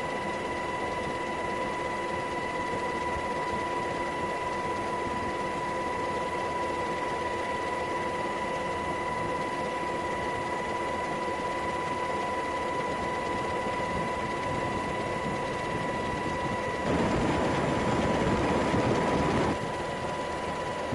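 Steady mechanical drone with a constant high whine. About 17 seconds in, a louder rush of noise swells for a couple of seconds and then drops back.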